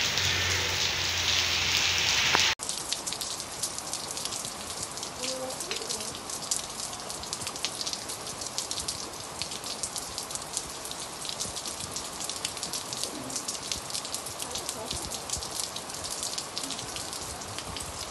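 Rain falling: a loud steady hiss at first, then, after a sudden change about two and a half seconds in, a quieter dense patter of individual raindrops.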